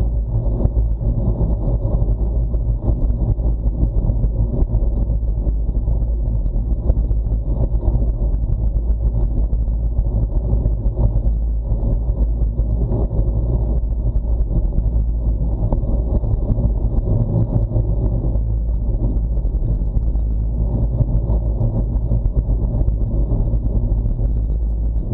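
Steady low wind rumble buffeting an action camera's microphone as a bicycle rides at about 27 km/h.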